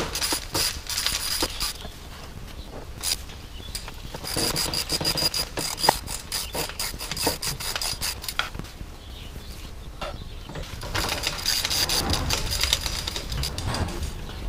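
Hand ratchet clicking in several spurts as fasteners are worked loose, with scattered sharp metal clicks and clinks in between.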